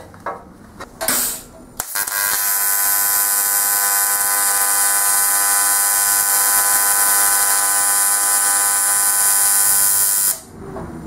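AC TIG welding arc on thin aluminum sheet, a steady electric buzz while a tack weld is made with the amperage turned up. It starts suddenly about two seconds in and cuts off shortly before the end.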